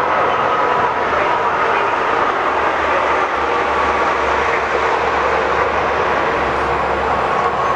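Steady, loud vehicle noise with a few faint steady tones; a low hum grows stronger about three and a half seconds in.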